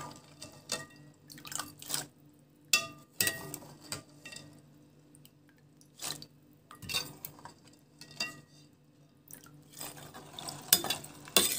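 Water splashing and dripping over soaked fava beans in a metal pot, with scattered light clinks against the pot. A faint steady low hum runs underneath, and the splashing is busiest near the end.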